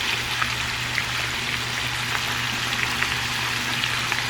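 Sliced red potatoes and onions frying in butter in a skillet over high heat: a steady sizzle with small crackles and pops, over a low steady hum.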